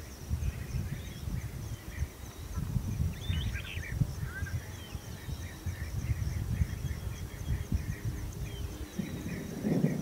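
Savanna outdoor ambience: scattered short bird chirps and a steady high insect-like trill over a continuous low rumbling.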